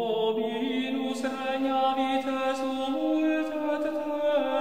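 Sung chant: voices holding long, drawn-out notes that step and glide slowly from one pitch to the next.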